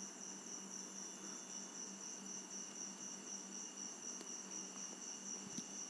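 Crickets chirring in a steady, unbroken high trill, with a faint low hum underneath.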